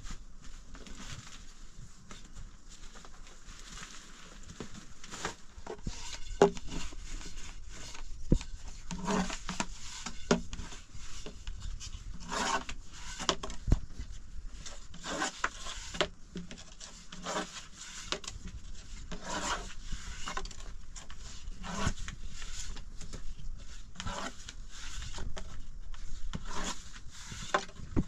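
Irregular rubbing and scraping strokes on a hard surface, with a few sharp knocks.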